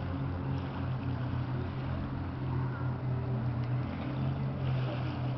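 Jet ski engines droning steadily across open water, a continuous low hum that pulses slightly, with wind noise on the microphone.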